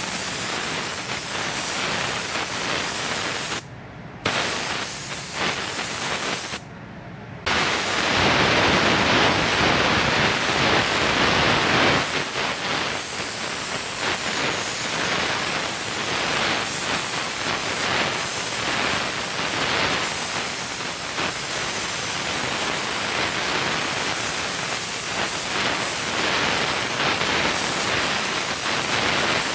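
Gravity-feed paint spray gun blowing compressed air and atomised paint in a steady hiss while spraying a car panel. The hiss stops twice briefly, around 4 and 7 seconds in, as the trigger is released.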